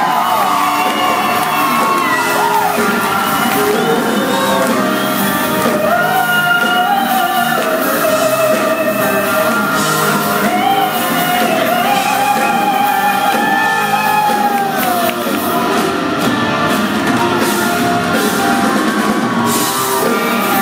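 A live rock band playing with a woman singing lead, her sung melody holding and bending long notes over guitars, keyboards and drums, heard from the audience in a large hall.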